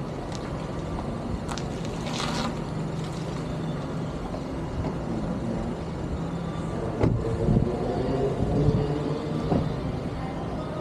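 A motor vehicle engine running steadily, with a few sharp clicks and knocks over it.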